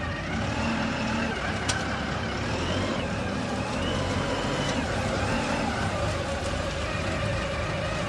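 Diesel engine of a self-loading concrete mixer truck running steadily as the machine drives past. A faint high whine rises and falls a few times.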